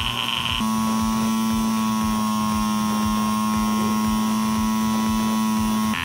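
Small electric motor of a color-wheel kit humming steadily as it spins the colour disc at full speed. The hum is one even pitch with many overtones, grows louder about half a second in and drops away just before the end.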